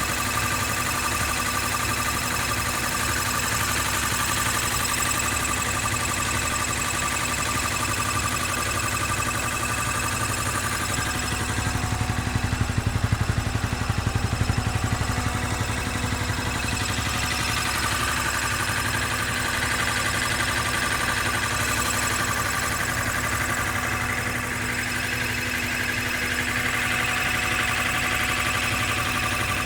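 Honda CBR250R's single-cylinder engine running, probably at idle, with a weird metallic rattling or tingling from the engine or gearbox. It is a steady mechanical sound with several fixed whining tones, a little louder for a few seconds about twelve seconds in. The owner reports the rattle even at idle on a six-month-old bike with 2500 km, just after an oil change, and the service centre could not find its cause.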